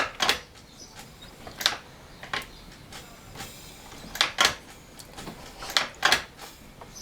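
Sharp metallic clicks and taps of hand tools on a scooter engine being worked on, coming at irregular intervals, some in quick pairs.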